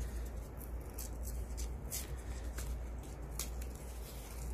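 Paper being picked and peeled by hand off a thin, soft-wood cigar box panel: scattered small crackles and scratches. A steady low hum sits underneath.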